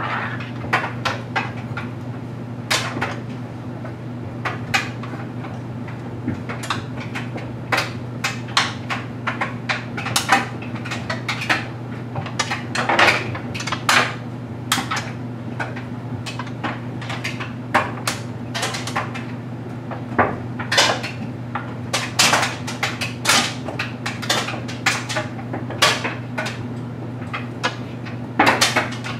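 LG Mega Capacity clothes dryer running with a steady low hum, its drum tumbling a load of stuffed animals, with irregular clicks and knocks as the load falls against the drum and door.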